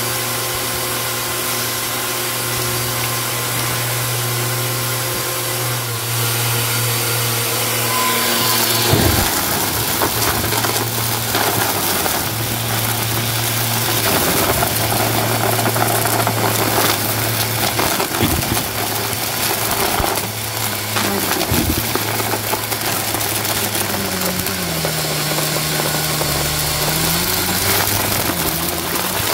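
Bissell Helix vacuum cleaner running with a steady motor hum. From about nine seconds in, there is the crunching crackle of carpet debris being sucked up. The motor note dips in pitch briefly near the end.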